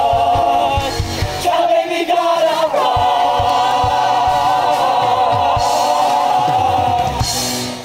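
A musical-theatre ensemble of many voices sings the last phrases of a number with a live pit band and drum hits underneath. From about three seconds in they hold one long final chord, which cuts off at the very end.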